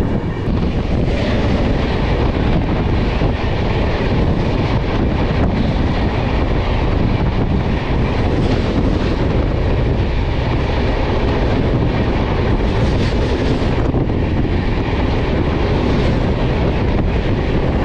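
Loud, steady rush and rattle of the 05955 Brahmaputra Mail passenger train passing at speed on the adjacent track, over the running noise of one's own train, heard through an open coach door.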